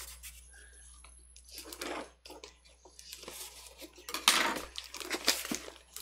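A cardboard box and a pair of scissors being handled on a desk: scraping and rustling of cardboard, with a run of sharp knocks and clatters in the second half, heard over a video call.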